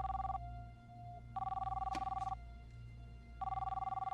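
Telephone ringing: a two-tone warbling ring about a second long, coming back about every two seconds. A ring is ending at the start, there is one full ring, and another begins near the end.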